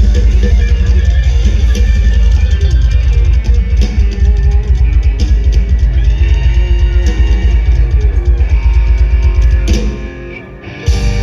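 Isan lam phin-khaen style band music: a plucked-string lead over drum kit and heavy bass at a fast, steady beat. The band breaks off near the end and lands on one final held chord.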